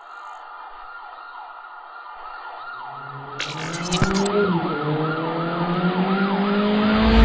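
Emergency-vehicle siren sound effect yelping in quick rise-and-fall sweeps, about two or three a second and growing louder. Under it a car engine comes in about two and a half seconds in, its pitch slowly rising as it drives.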